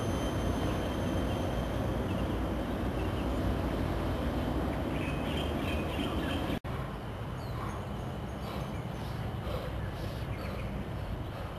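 Outdoor ambience: a steady low rumbling noise with faint bird chirps. Just past halfway the sound cuts out for an instant and comes back a little quieter.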